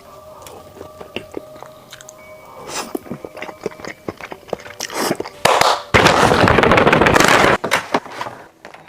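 Close-miked eating-table handling noises: scattered small clicks and taps, then a loud rustling or crackling noise for about two seconds past the middle.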